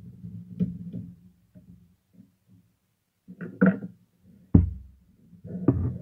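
Hands handling a typewriter's casing and carriage: rubbing and scattered knocks, a clattering burst about three and a half seconds in, and a heavy thump a second later.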